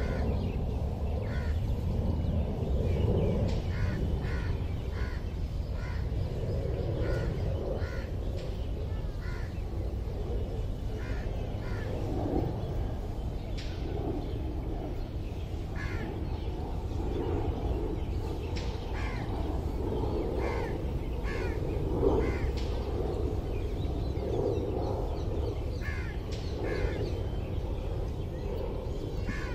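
Crows cawing repeatedly in short, harsh calls, over a steady low rumble of background noise.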